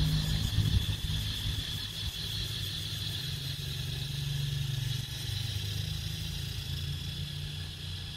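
A small engine idling steadily, a low even hum, with a steady high-pitched buzz running above it.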